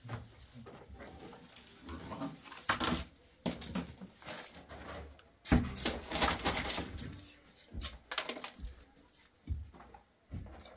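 Grey PVC drain pipes and fittings knocking and scraping as they are handled and set down on rubble, in irregular clatters with the loudest knock about five and a half seconds in.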